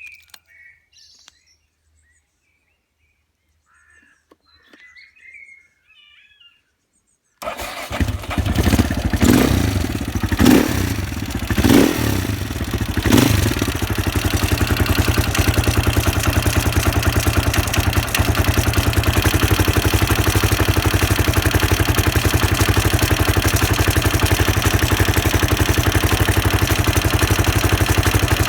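A Husqvarna SM 610 supermoto's single-cylinder engine starts suddenly about seven seconds in and is blipped four times, then settles into a steady, evenly pulsing idle that the owner finds odd. Faint bird chirps before it starts.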